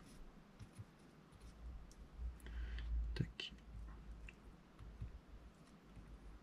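Faint small clicks and taps of a soldering iron and solder wire working on a small charge connector's solder cup, with a low handling rumble and a few sharper clicks in the middle.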